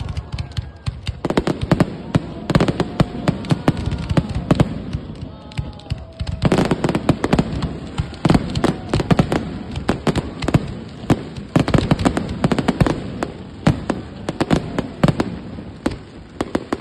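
Fireworks display: rapid salvos of bangs and crackling bursts going off in quick succession, thickest from about six and a half seconds in.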